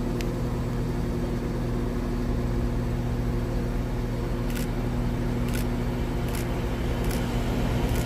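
Steady droning hum of a train at a railway station, an even multi-tone drone that holds level, with a few faint clicks in the second half.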